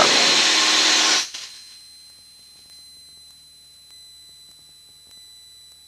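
Light-aircraft cabin noise, engine and airflow, for just over a second, cutting off abruptly. After that only a faint steady high-pitched electronic whine remains.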